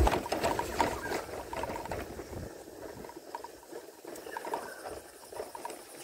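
Rustling and scattered light crackles of movement through wet grass, loudest in the first two seconds, then faint.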